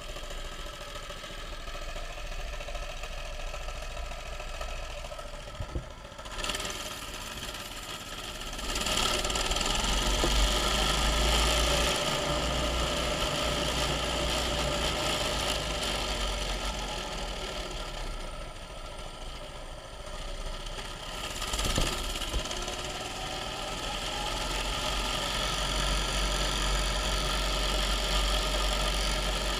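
Mini bike's small engine idling, then pulling away about eight seconds in and running steadily under way. It eases off briefly about two-thirds of the way through, then picks up again.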